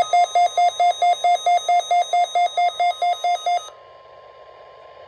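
Weather alert radio receiver sounding its alarm for an incoming alert: a rapid beeping tone, about five beeps a second, that stops abruptly about three and a half seconds in. Faint radio hiss with a faint steady tone follows.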